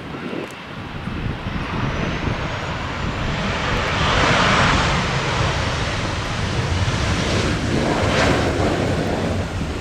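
Jet airliner's engines passing, the roar swelling to its loudest about halfway through and swelling again near the end, with strong wind buffeting the microphone.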